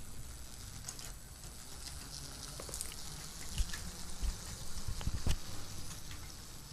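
Lego train running on plastic track: irregular light clicking and rattling, with a few dull thumps about three and a half and five seconds in.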